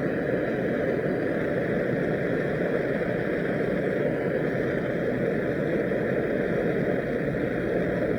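Turbo torch flame burning steadily as it heats a pipe joint for soft soldering.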